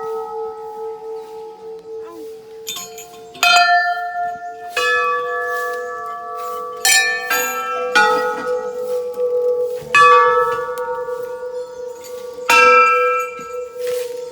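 Hindu temple bells (ghanti) rung by hand, struck about seven times at uneven intervals of one to two and a half seconds. Each stroke rings on at several pitches and overlaps the next, so the ringing never dies away.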